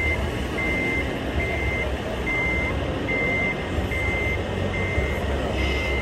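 Electronic reversing beeper of a radio-controlled model truck's sound system: one steady high beep repeating evenly, a little faster than once a second, over a continuous low rumble.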